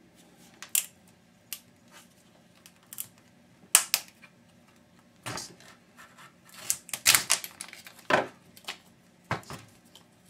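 Hand tools and small parts of a dismantled electric hedge trimmer clicking and clacking: a dozen or so sharp, irregular clicks and knocks, busiest around seven seconds in.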